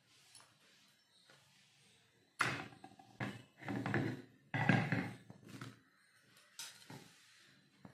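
Clunks and thuds of an iron tawa being handled on a gas stove's burner grate: a quick run of knocks starting about two and a half seconds in, the loudest near the middle.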